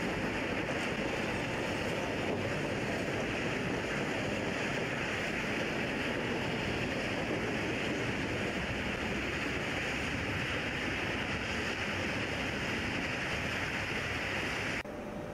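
Steady rushing noise of wind and a Nilgiri Mountain Railway train running, heard from a carriage window, cutting off abruptly near the end.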